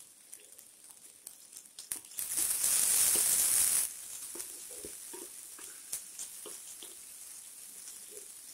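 Chopped onions frying in hot oil in a pan, stirred with a spatula. The sizzle swells loudly for about two seconds, starting about two seconds in, then settles to a low steady crackle with light spatula knocks.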